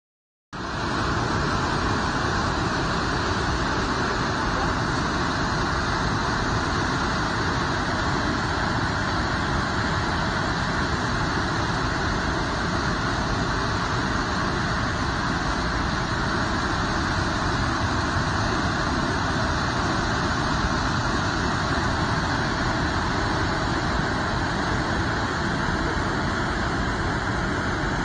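Large waterfall pouring steadily over a rock ledge: a constant loud rush of falling water that starts suddenly about half a second in.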